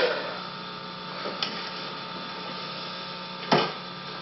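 Steady electrical mains hum with a few short knocks or clicks, the loudest about three and a half seconds in.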